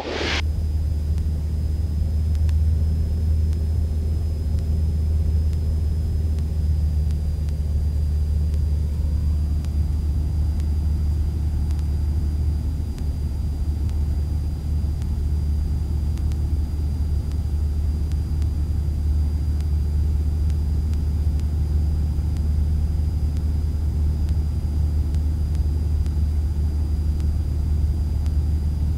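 Steady low drone of a Cessna 172's engine and propeller heard from inside the cabin in flight, with a faint high whine running over it.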